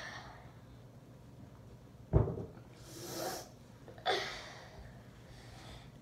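Towel being handled while drying a face, with the person's breath: a sharp thump about two seconds in, a breathy swish just after three seconds, and another sudden rush of noise about four seconds in.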